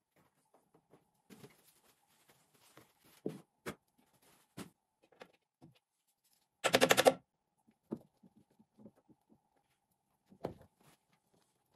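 Hand work on a car tailgate: scattered light knocks and clicks as a wiring loom and its rubber grommet are fitted. A little past halfway comes one short, loud buzzing rattle.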